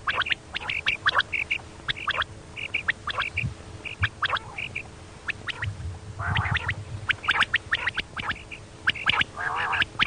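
Female quail calling: short, sharp notes and quick rattling clusters of notes, repeated irregularly with little pause. This is the female call that hunters play to lure quail.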